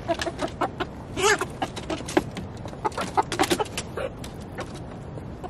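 Chickens clucking in short calls, with many quick sharp taps as hens peck blueberries from a small hand-held bowl.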